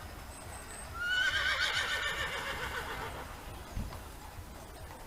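A horse neighing once: a loud, quavering whinny that starts about a second in and fades away over about two seconds.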